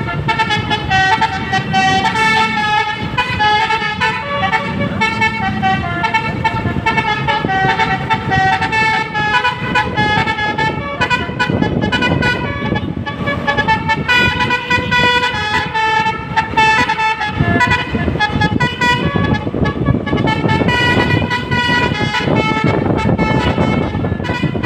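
A bus's Basuri telolet horn playing a long melody of quick stepping notes, over the rumble of the bus's engine.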